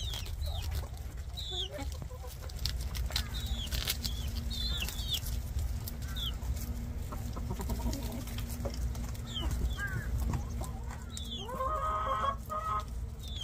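Chickens clucking, with short high chirps throughout and a louder, drawn-out hen call about twelve seconds in, over a steady low rumble.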